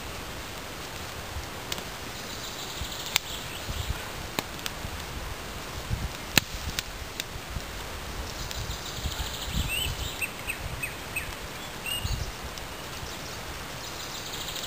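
Woodland birds chirping over a steady background hiss, with rustling and scattered sharp clicks and snaps as tinder and small sticks are handled while a fire is lit.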